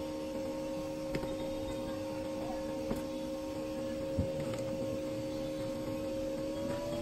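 A steady hum of two held tones that step up slightly in pitch near the end, with a few faint clicks and a light tap about four seconds in.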